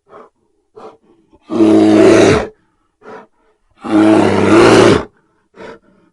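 An animal calling twice: two loud, rough calls of about a second each, a couple of seconds apart, with short faint sounds between them.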